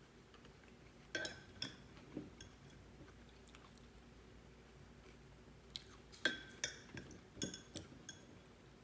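Close-miked eating sounds: chewing with short, wet, clicky mouth noises, in a cluster about a second in and another from about six seconds in, with a quiet stretch between.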